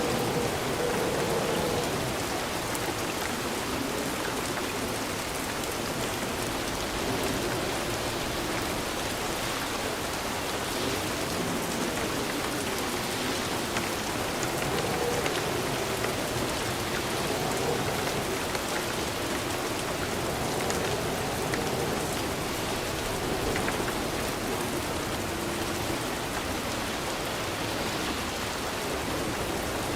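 Steady rain falling: a constant hiss with many individual drops ticking, even in loudness throughout.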